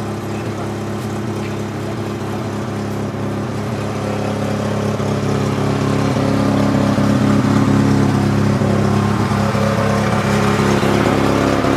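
An engine running steadily at a low idle, growing a little louder about halfway through.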